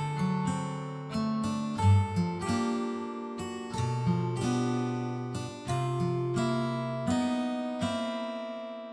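Background music: acoustic guitar playing plucked notes and chords, each note dying away before the next.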